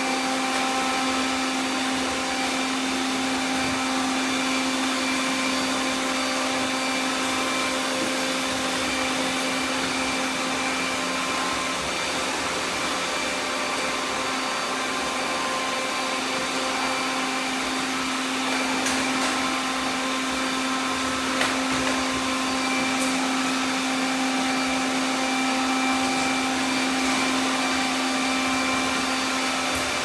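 Several robot vacuum cleaners running at once: a steady whirring hum of their motors and brushes, with a few faint knocks in the second half as they bump about.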